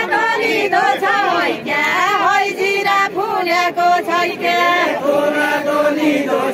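Group of voices singing a Deuda folk song without instruments, in long held notes that bend up and down.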